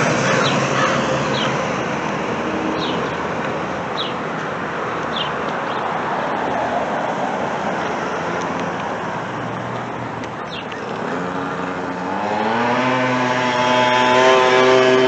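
Road traffic on a busy street: a steady wash of passing vehicles, then about three-quarters of the way through an engine rises in pitch as a vehicle pulls away and holds a steady note. A few short, high chirps are heard in the first half.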